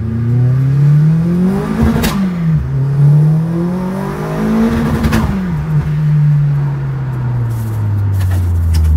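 Turbocharged Opel Astra four-cylinder engine heard from inside the cabin under hard acceleration: the revs climb, break with a short burst of noise at a gear change about two seconds in, climb again to a second change about five seconds in, then ease slowly down.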